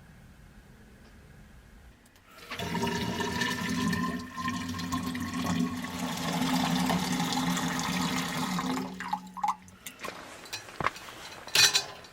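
Water pouring into a container for about six seconds, starting about two and a half seconds in and stopping suddenly. A sharp click follows near the end.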